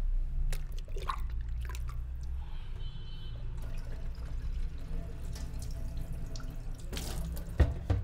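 Close rustling and scratching on a clip-on microphone, with a steady low rumble and scattered small clicks. A short burst of rustling comes about seven seconds in, then a sharp knock just after, which is the loudest sound.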